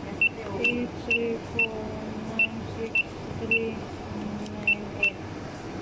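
Card payment terminal's PIN pad beeping as its keys are pressed: about nine short, high beeps at uneven intervals, one per key press.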